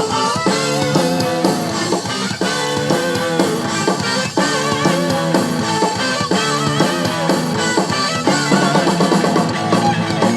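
Rock music with a drum kit and guitar, playing with a steady beat.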